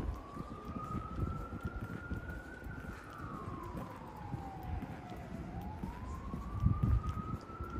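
Emergency vehicle siren wailing: a single tone that slowly rises, falls over a couple of seconds, and rises again near the end, over low rumbling street noise.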